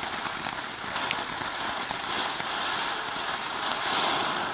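Small box-type ground firework burning: a steady hissing crackle with a few faint pops, dying away at the very end.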